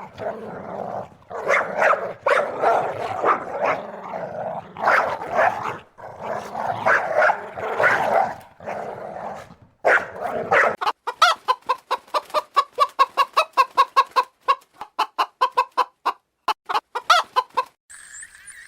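Chickens clucking. Over the last several seconds this becomes a quick, even run of clucks, about six a second.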